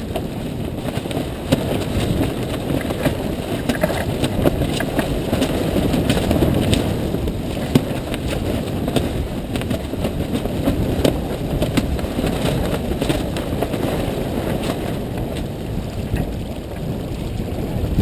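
Wind buffeting the camera microphone and water rushing past the hull of a sailboat under way, with scattered light clicks and knocks from gear on deck.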